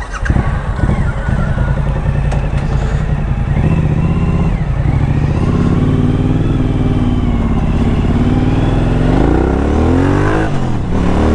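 Suzuki V-Strom 1000's V-twin engine running under way. It comes on loud right at the start, then the revs rise and fall through gear changes, climbing steeply near the end before dropping.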